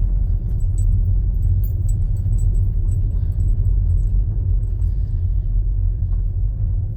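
Car interior sound while driving slowly on a bumpy driveway: a steady low road-and-engine rumble with light rattles and clicks from loose things in the cabin.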